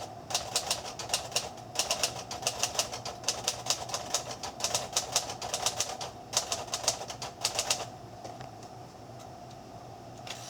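1938 Royal Aristocrat manual typewriter being typed on: quick runs of key strikes, several a second, in bursts with short pauses, stopping about eight seconds in.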